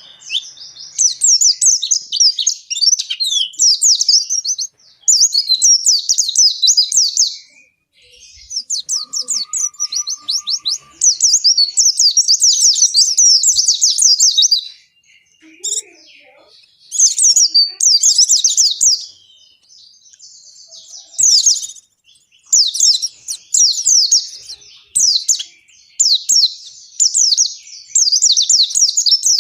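Pleci (white-eye, Zosterops) singing in fast, high twittering phrases a few seconds long with short pauses between them. This is the long, continuous song that keepers call 'ngalas'.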